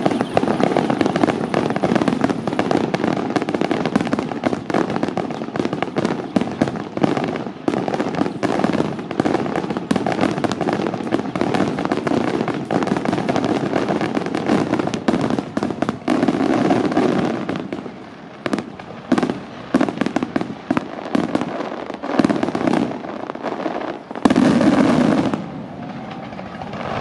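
Aerial fireworks going off in rapid, dense volleys of bangs and crackle. The volleys thin into separate bangs with short gaps past the middle, and a loud burst near the end cuts off suddenly.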